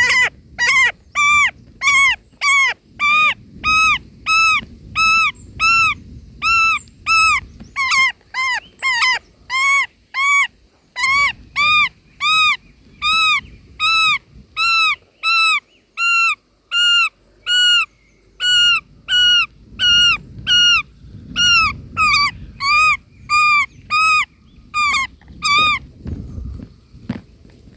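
Indian roller calling in a steady series of short, arched notes, about two a second, with a brief pause a third of the way in and stopping near the end.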